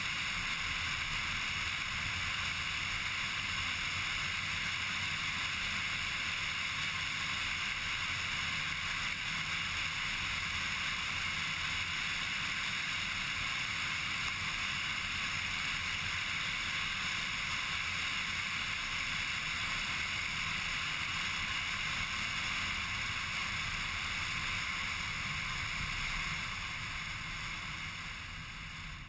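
Steady engine, tyre and wind noise of a car driven at speed, heard from a camera mounted inside behind the windscreen. The noise eases off a few seconds before the end as the car slows.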